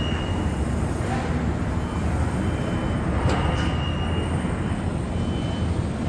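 Steady low rumble of construction-site and city noise, with a faint high whine coming and going and two sharp knocks a little after the middle.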